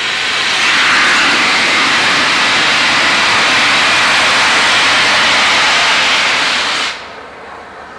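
Steam locomotive releasing steam in a loud, steady hiss that cuts off suddenly about seven seconds in.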